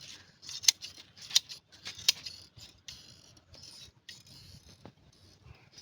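Scissors cutting a sheep's fleece by hand: sharp metallic snips about every two-thirds of a second with a hiss of wool between them, growing softer and more scattered after about two seconds.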